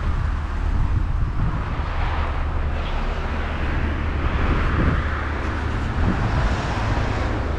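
Road traffic noise from cars driving along the road close by: a steady rumble of engines and tyres that swells a little near the middle as a vehicle passes.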